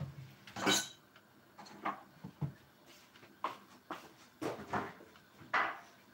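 Scattered short knocks and clatter of kitchen things being handled, about ten separate sounds over a quiet background.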